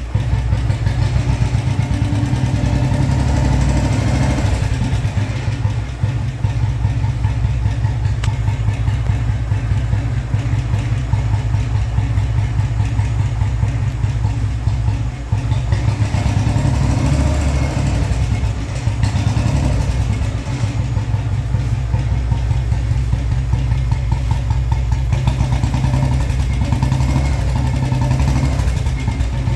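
Royal Enfield Bullet 500's cast-iron single-cylinder four-stroke engine, with a heavy crank, idling steadily with its slow, even thump.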